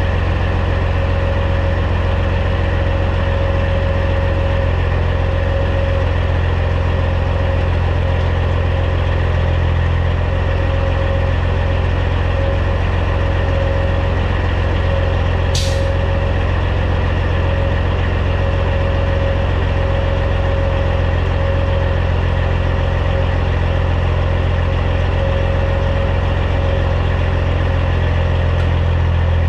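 The Caterpillar C15 diesel of a Peterbilt 379 semi runs steadily at low revs while reversing. A short, sharp hiss of air comes about halfway through.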